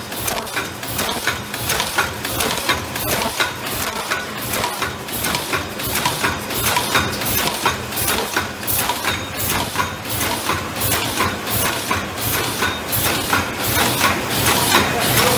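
Paper soup-bowl forming machine running at production speed: a rapid, steady clatter of clicks and knocks from its rotating turret and forming stations, over a low motor hum.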